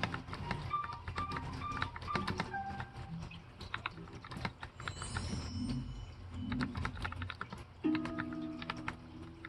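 Typing on a KBDfans 8X mechanical keyboard fitted with lubed Tealio linear switches in Cherry housings, lubed Cherry screw-in stabilizers and GMK Stormtrooper keycaps. Keystrokes come in quick runs with brief pauses, the clicks thinning out a few seconds in before picking up again.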